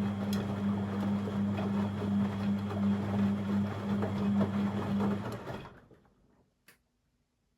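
Beko WML 71433 NP washing machine running with a steady low hum under a rushing, churning noise, which stops about five seconds in; a single click follows shortly after.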